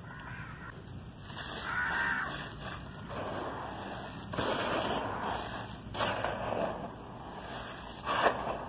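Bare hand digging into, scooping and crumbling dry charcoal powder and small charcoal chunks: dry, gritty crunching and rustling in several bursts, with a sharper crunch a little before the end.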